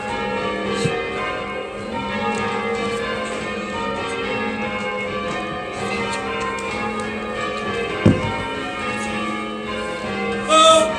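Church tower bells change ringing: a ring of bells struck one after another in continually changing order, their tones overlapping and ringing on. There is a single thump about eight seconds in.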